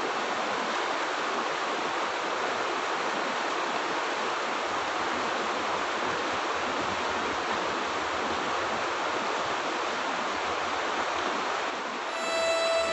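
Shallow, rocky river rushing and babbling over stones, a steady unbroken wash of water noise. Music fades in during the last second.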